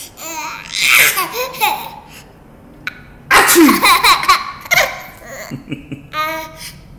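A baby giggling in two long fits of laughter, about a second in and again from about three seconds, with a shorter giggle near the end.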